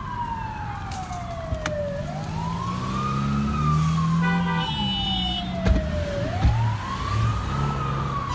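Fire engine siren wailing. Its pitch slides slowly down for about two seconds, then swoops back up over about a second and a half, twice, over a low traffic rumble.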